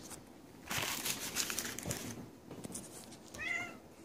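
Plastic bubble wrap crinkling and crackling in a loud flurry for about a second and a half as a cat pounces and paws in it, with a short high-pitched squeak near the end.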